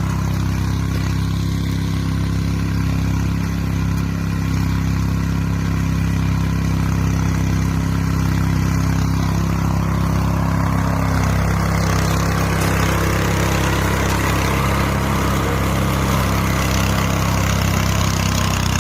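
Engine of a homemade radio-controlled mower running steadily. About eleven seconds in, its sound changes and gets brighter and harsher.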